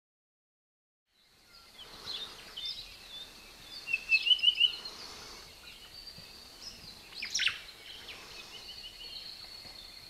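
Forest birdsong fading in about a second in: several birds chirping and calling, with a run of quick repeated notes around four seconds in and sharp downward-sweeping calls near the middle and at the end, over a thin steady high tone.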